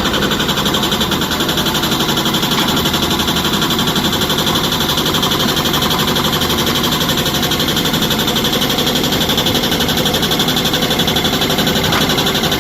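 Heavy diesel engine of quarry machinery running steadily and loudly, with a fast, even rumble.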